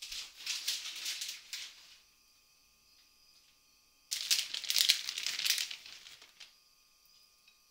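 Shredded cheese being scattered by hand over a dish: two spells of light rustling and crinkling, the second starting about four seconds in and louder.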